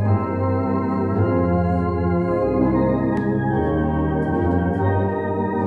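Tuba and a large saxophone playing a slow hymn together in a low register, held notes changing pitch every second or so.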